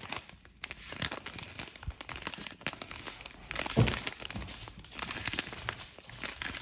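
Small plastic zip bags of diamond-painting drills crinkling and crackling as they are handled and turned in the fingers, with one louder crackle about halfway through.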